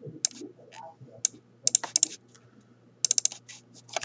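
Clicking of computer keys: scattered single presses, then a quick run of several keystrokes about three seconds in.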